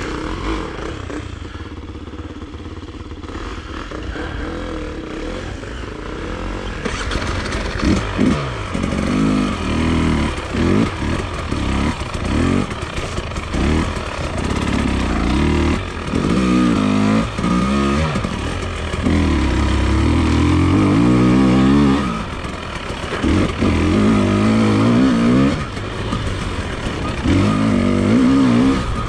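Enduro motorcycle engine being ridden, running fairly evenly for the first several seconds, then revving up and down again and again, its pitch rising and falling with each burst of throttle.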